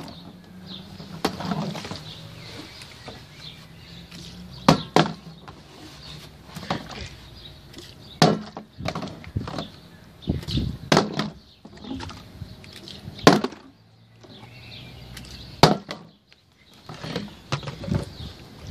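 Partly filled plastic drink bottle being flipped and landing on wooden deck boards: a series of sharp knocks a few seconds apart, with handling and rustling between.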